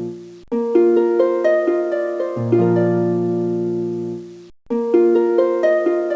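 Background music: a plucked, harp-like melody in a short phrase that repeats, each note struck and fading, with brief breaks about half a second in and again near the end where the phrase starts over.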